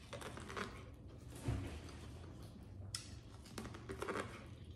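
Faint chewing and biting of boiled corn on the cob, a few sharp mouth clicks over a low steady hum.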